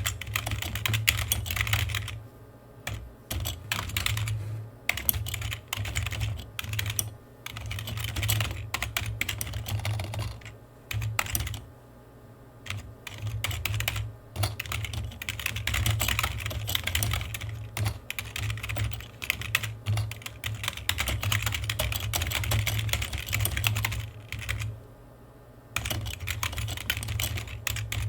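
Typing on a computer keyboard: fast runs of key clicks, broken by short pauses of about a second, three of them.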